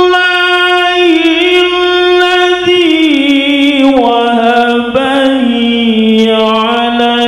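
A male qari's melodic Quran recitation (tilawah) through a handheld microphone: long held, ornamented notes that step down in pitch about three seconds in and again around four seconds.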